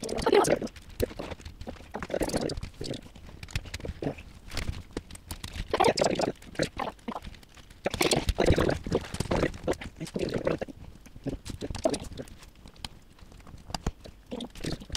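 Plastic Lego Technic pieces clicking, tapping and rattling in irregular bursts as they are handled and snapped together on a table.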